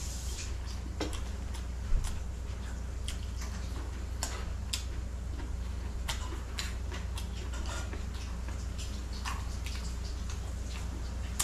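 Eating sounds: irregular small clicks and crackles of chewing and of shell-on shrimp being handled and peeled by hand, over a faint steady low hum.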